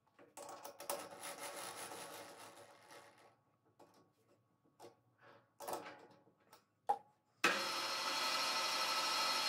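Three-jaw lathe chuck being closed on a drill bit's shank with the chuck key, a rough metallic scraping for about three seconds, then a few separate clicks as the jaws are snugged tight. About seven and a half seconds in, the metal lathe starts and the chuck spins steadily, its motor and gears giving a steady hum made of several tones.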